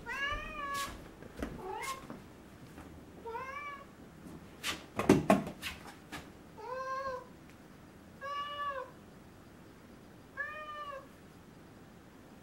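Domestic cat meowing again and again: about six separate meows, each rising then falling in pitch, a second or two apart. About five seconds in there are a few sharp knocks.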